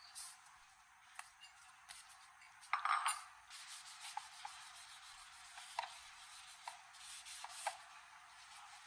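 Light clicks, taps and rubbing from hands working on toaster parts, with a louder noisy burst lasting about half a second around three seconds in.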